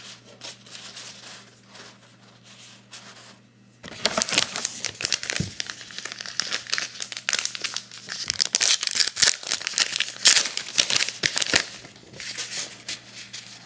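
Plastic-foil trading-card pack wrapper crinkling and tearing as it is opened by hand. It is faint for the first few seconds, then louder and dense from about four seconds in until shortly before the end.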